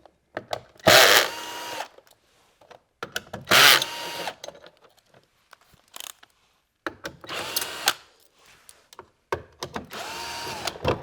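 Power drill-driver running in four short bursts of about a second each, with pauses between, backing out the hex screws that hold a massage chair's side panel.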